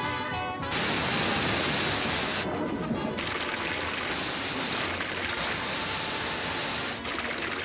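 Cartoon sound effect of water gushing from a hose and spouting out of the pool-table pockets: a loud hissing spray that starts about a second in, breaks off briefly twice and comes back, over music.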